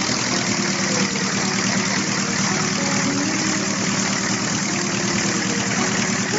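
Small Wallis autogyro's engine running steadily at idle, freshly started by hand-swinging its wooden pusher propeller, with the spinning propeller adding a whirr.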